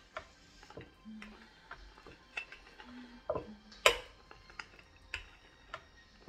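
Wooden rolling pin rolling out rye dough on a wooden butcher block: a run of uneven clicks and knocks, about two a second, as the pin and its handles rattle back and forth, with one sharper knock about four seconds in.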